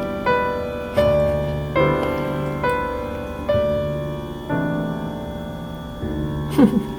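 Slow, gentle solo piano background music, a new note or chord struck about once a second and left to ring. A brief gliding sound cuts in near the end.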